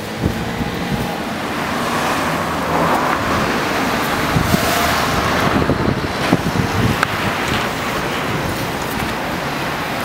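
Road traffic: a motor vehicle passing on the street, its engine and tyre noise swelling to its loudest about halfway through, then easing off, with wind buffeting the microphone.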